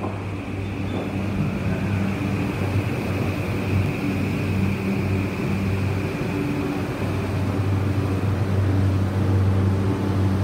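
Tokyu 2020 series electric train running slowly past along the platform: a steady low hum and wheel rumble, with a high whine that fades out about eight seconds in.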